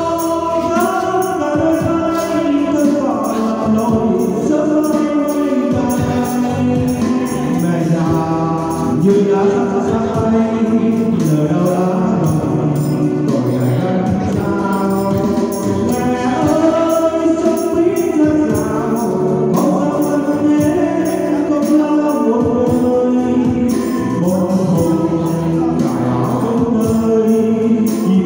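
A woman and a man singing a Vietnamese song as a duet into microphones over music, with tambourines shaken in time.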